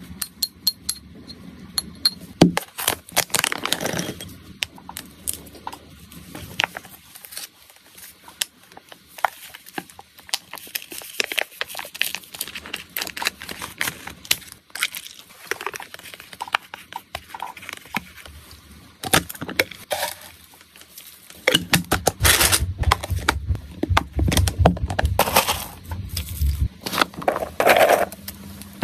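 Close-up handling of pet food and packaging: a small spoon scraping and clinking in a plastic bowl, a foil snack pouch crinkling and being cut with scissors, and dry freeze-dried treats clattering in a clear plastic container, loudest and densest about three quarters of the way through.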